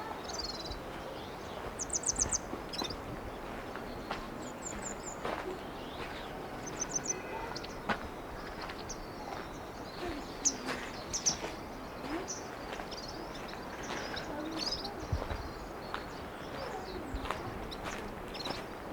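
Small birds chirping in short, high, repeated trills and calls over a steady outdoor wind hiss.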